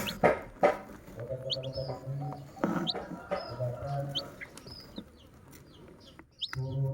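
Dyed chicks peeping in many short, high chirps, with lower, longer calls underneath and a few sharp taps near the start.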